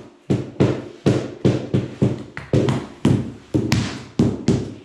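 Rubber mallet tapping wooden herringbone floor planks down into the trowelled adhesive: a steady run of dull knocks, about three a second.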